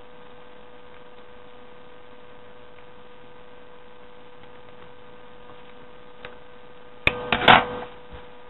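Steady electrical mains hum, one constant tone with faint overtones. About seven seconds in, a brief, loud rustling clatter of handling on the table.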